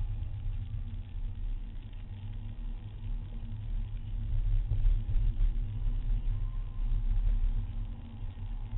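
Diesel Seat Leon driving on the open road, heard from inside the cabin: a steady low rumble of engine and road noise that swells a little about halfway through.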